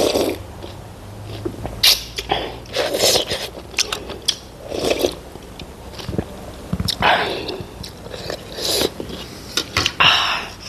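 A person slurping pork thukpa noodle soup and chewing, in a series of short, noisy slurps about every one to two seconds with wet mouth clicks between them.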